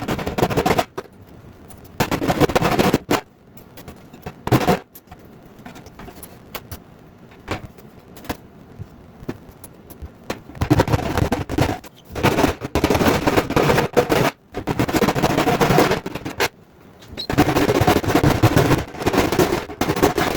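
Electric drill driving a hole saw through the sheet-steel fuel tank, cutting in repeated bursts of one to three seconds with short pauses between.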